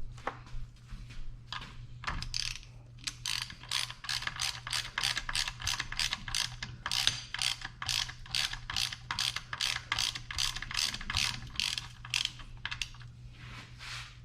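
Hand ratchet wrench being worked back and forth, its pawl clicking at about three strokes a second, after a few scattered clicks at the start.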